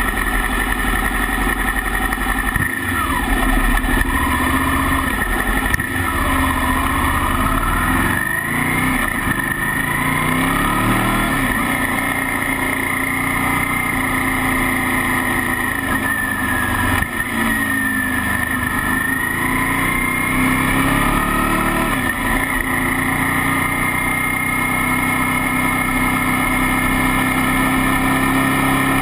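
Motorcycle engine heard from on board while riding, its pitch rising and falling several times as the rider speeds up and eases off, then holding steady over the last several seconds. Steady road and wind noise runs underneath.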